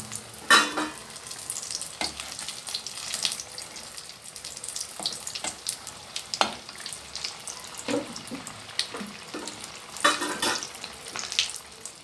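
Spring rolls deep-frying in medium-hot oil, a steady crackling sizzle. A utensil knocks and scrapes against the pan a few times as the rolls are turned, loudest about half a second in and again about ten seconds in.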